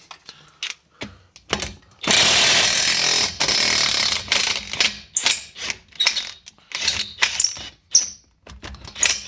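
Power impact wrench hammering on a seized nut for about two seconds, then a series of short bursts and clicks as it works the heat-loosened nut off.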